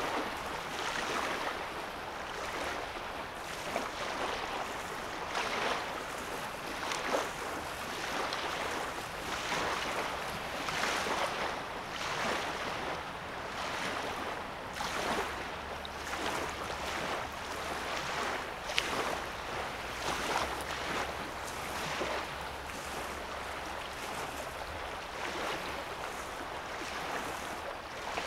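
Small lake waves lapping on a sandy shoreline, a soft wash that swells every second or two, with a few sharper clicks. A faint low hum runs underneath through the middle stretch.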